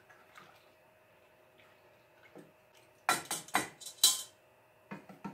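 A utensil clinking and knocking against a stainless steel mixing bowl while a thick bubble solution is stirred: faint ticks at first, then a quick run of five or six sharp clinks about three seconds in, and a couple of softer knocks near the end.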